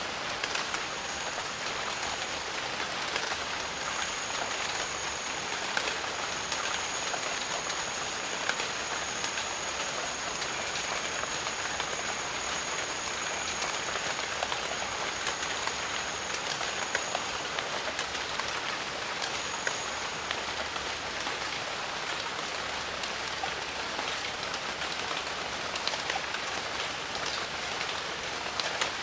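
Steady rain falling on jungle foliage, a dense even patter of many drops. A thin high steady tone runs alongside from about a second in until past halfway, returning briefly later.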